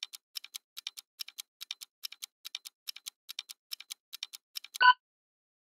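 Countdown timer sound effect: quick clock-like ticking, each tick a sharp double click, about two and a half ticks a second. The ticking stops near the end and a single short, louder electronic beep follows.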